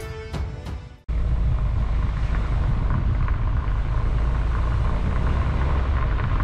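A car driving at steady speed: a steady low engine and road rumble heard from inside the cabin, starting abruptly about a second in after the end of a short music sting.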